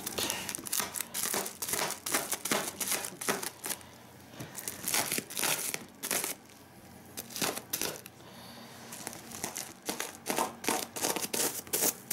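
Bubble wrap being cut with a blade and pulled away by hand, crinkling and crackling in quick clusters, with a quieter stretch around the middle.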